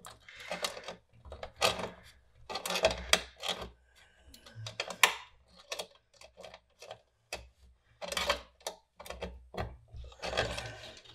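Pliers working a small threadlocked nut off a screw on a metal power-supply chassis: irregular metal clicks and scraping. The nut is held by Loctite and is not yet spinning freely.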